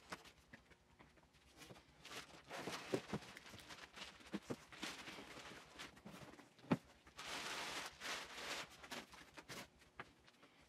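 Clear plastic packaging bag crinkling and rustling and a cardboard box being handled while a portable power station is unpacked, with scattered clicks and knocks. One sharp thump comes about two-thirds of the way in, followed by a second or so of steady rustling as the bag is pulled off.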